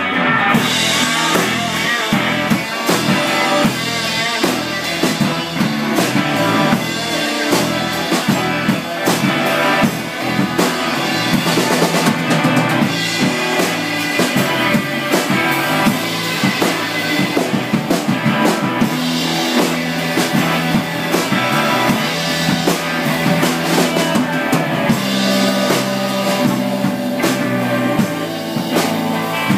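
Live band playing an instrumental passage: electric guitars over a drum kit, with no singing.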